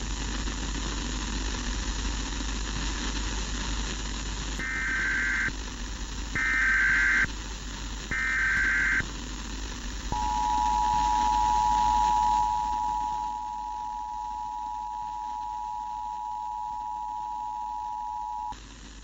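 Emergency Alert System broadcast tones over a hissing channel: three short bursts of the warbling digital header, each about a second long, then the two-tone attention signal held steady for about eight seconds before it cuts off suddenly.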